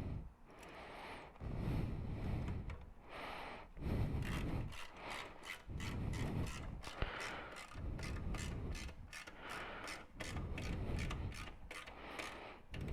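Hand tools and exhaust hardware being worked while a motorcycle exhaust is fitted: rubbing and scraping, with a run of quick ratchet-like clicks from about four seconds in.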